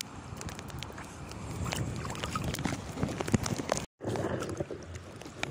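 Choppy lake water sloshing and splashing close to the microphone, with wind rumbling on the mic and many small splashes as the water is worked. The sound drops out for a moment just before four seconds in, then the water noise carries on a little quieter.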